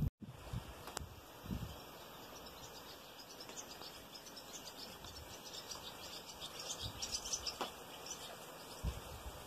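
Steady rain falling, a soft even hiss, with small high chirps of birds scattered through the middle and a soft low thump about a second and a half in.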